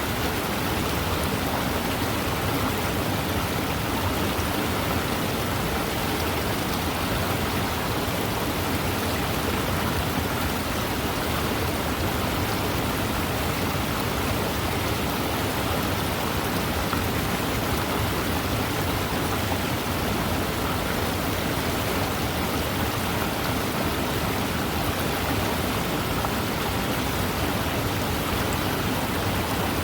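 Waterfall: a steady, unbroken rush of falling water that does not change in level.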